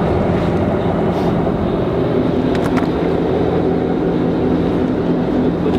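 Sportfishing boat's engine running steadily: a low, even drone with water and wind noise over it.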